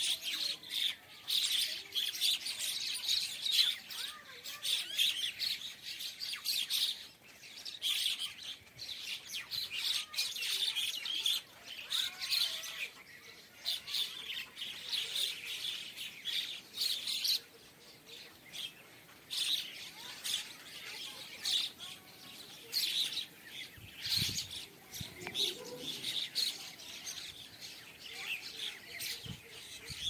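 A large flock of mynas calling all at once: continuous overlapping chattering and squawking that swells and dips. A few brief low bumps come near the end.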